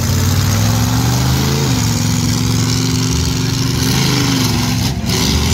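Monster truck's engine revving hard as it drives up onto a row of cars to crush them. The engine pitch climbs for about a second and a half, falls back, holds steady, and rises again about four seconds in.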